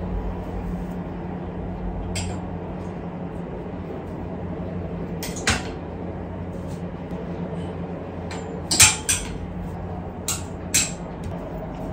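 Clothes hangers clicking and knocking against a metal clothes rack rail as garments are handled and moved along it: a handful of sharp clicks, the loudest about nine seconds in, over a steady low hum.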